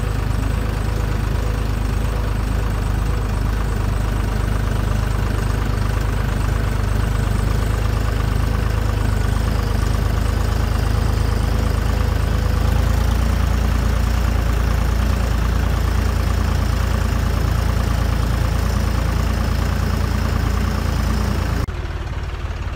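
Deutz-Fahr tractor's diesel engine running steadily as the tractor drives up a rough dirt track in four-wheel drive, heard from on board. About a second before the end it suddenly becomes quieter.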